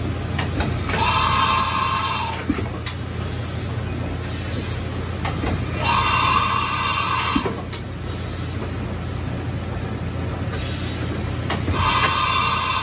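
Haas VF-2SS CNC vertical machining center running through repeated automatic tool changes on its side-mount tool changer. A steady low machine hum underlies three short mechanical whirs, about five to six seconds apart, with sharp clunks as tools are released and clamped.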